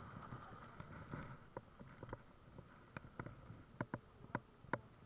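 Plastic fish-gripping tongs clicking and clacking as they are worked and clamped onto a scorpionfish: a string of short, sharp plastic clicks, sparse at first and loudest in a quick cluster near the end.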